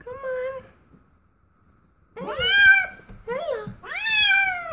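A cat meowing: one drawn-out meow at the start, then after a quiet pause three more in quick succession, each rising and then falling in pitch.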